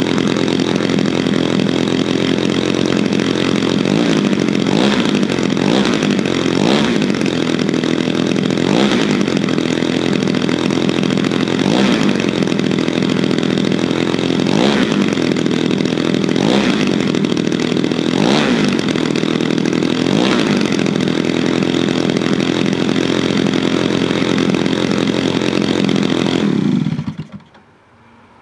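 Desert Aircraft DA-150 twin-cylinder two-stroke petrol engine of a large RC model plane, running uncowled on its first start, with the propeller turning. It runs steadily with a few brief wobbles in speed, then is shut off near the end and dies away within about a second.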